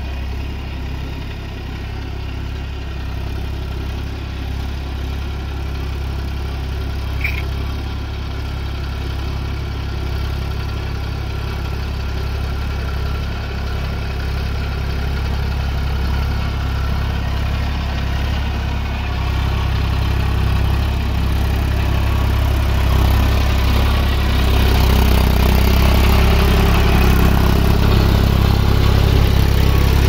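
Eicher tractor's diesel engine running steadily as the tractor pulls a rotavator through a flooded paddy field. The engine grows louder as the tractor comes closer.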